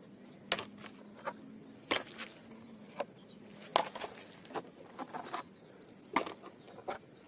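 Plastic toys knocking and clicking as they are picked up and dropped into a container: light, irregular knocks, about a dozen of them.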